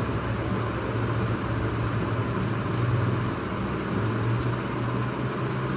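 Steady low hum with an even background hiss, unchanging throughout.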